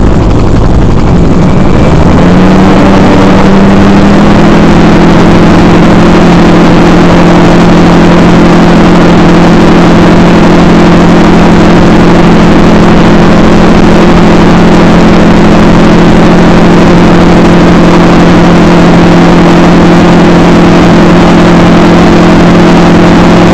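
Model aircraft's motor and propeller heard from the onboard camera, rising in pitch about two seconds in and then holding a steady drone, over loud constant wind rush.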